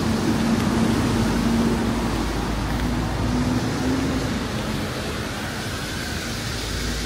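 Steady city street traffic noise, with a vehicle engine's low hum that fades out about four or five seconds in.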